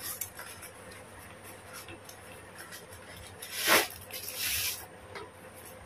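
Brown paper parcel wrapping being handled and torn off a machete, with one loud rip about two-thirds of the way through, followed by about a second of paper rustling.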